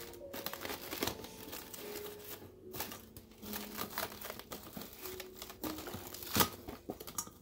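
Plastic cling wrap crinkling and crackling as it is stretched and pressed around the rim of a stainless-steel bowl, in irregular bursts with one sharper crackle about six seconds in.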